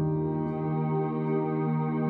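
Background ambient music with long, held chords.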